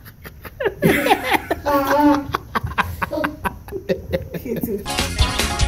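A toddler laughing and squealing close to a handheld microphone, with high-pitched, sing-song voice sounds. Music comes in near the end.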